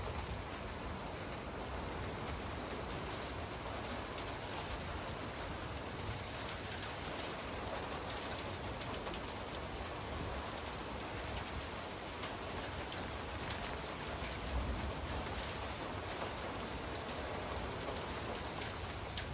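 Steady rain falling during a thunderstorm: an even, unbroken hiss of rain on surfaces.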